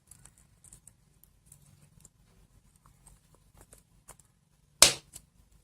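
Small plastic clicks and taps as the parts of an LED bulb are handled and fitted back together, with one sharp click about five seconds in and a smaller one just after.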